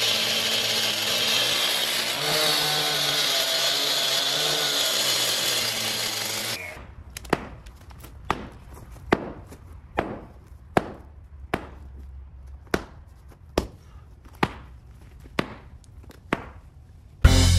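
Gas-powered concrete cut-off saw running steadily, then shutting off about six and a half seconds in. It is followed by about a dozen sharp hammer blows on concrete, roughly one a second, breaking up the sawn section of the sidewalk.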